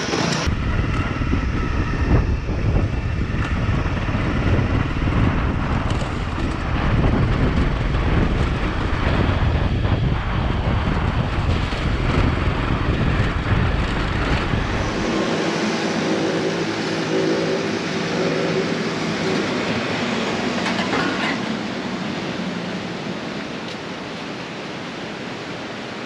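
Onboard riding sound of a Honda CRF250L single-cylinder trail bike: heavy wind buffeting and rumble over the engine on a gravel road. About fifteen seconds in the rumble drops away and a slower, pitched engine hum comes through, growing quieter toward the end.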